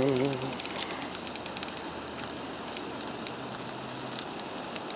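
Small backpacking stove burner hissing steadily, with faint scattered ticks.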